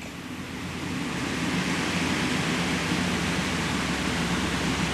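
Steady background hiss with a faint low hum. It swells up over the first second or so, then holds level.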